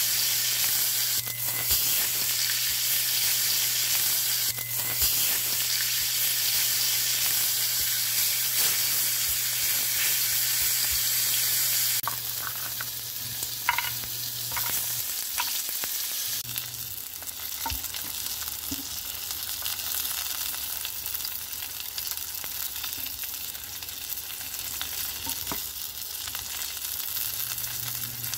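Tomahawk beef steak searing in hot fat in a frying pan: a steady, dense sizzle with occasional pops and crackles. The sizzle becomes a little quieter about twelve seconds in.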